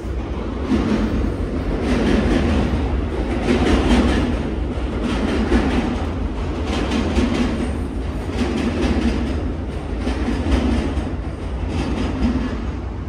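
A train running on rails, with a rhythmic clack of wheels over rail joints repeating about every second or so over a steady low rumble.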